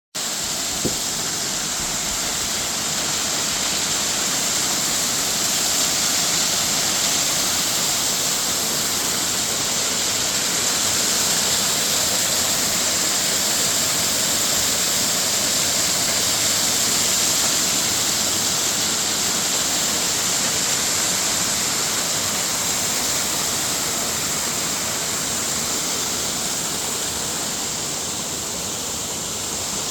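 Waterfall rushing steadily, an unbroken hiss of falling water, with a brief click about a second in.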